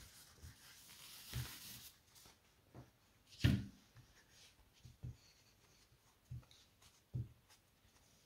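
Faint handling sounds of crochet work: thick cotton cord rustling as it is drawn through the stitches with a large plastic crochet hook, and a few light knocks, the loudest about three and a half seconds in.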